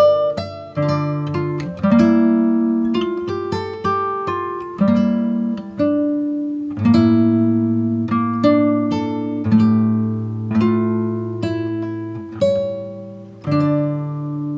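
Background music on acoustic guitar: picked notes and chords, each struck sharply and left to ring out, with a new one every half second to a second.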